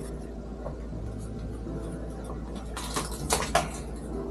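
Scissors snipping through a synthetic-leather (vinyl) repair sheet, a few sharp cuts about three seconds in, over a low steady hum.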